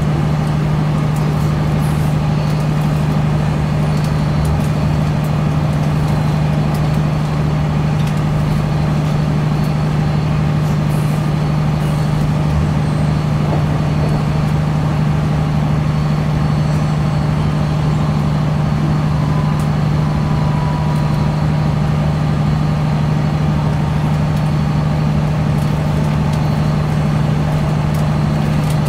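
Cabin noise inside a CAF Class 3000 diesel multiple unit on the move: a steady, unchanging drone with constant rushing noise, most of it from the train's air-conditioning unit.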